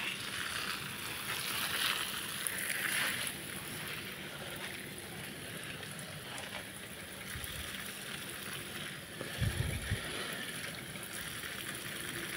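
Garden hose spray nozzle hissing as it soaks a potted plant's soil and mulch, a steady spray that is loudest in the first few seconds. A brief low bump about nine and a half seconds in.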